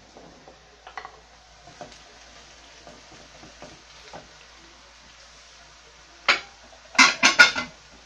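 Wooden spoon stirring fava beans and onions in a non-stick frying pan, with a few soft scrapes. Near the end comes a sharp clatter, then a quick run of three or four loud knocks of kitchenware being handled.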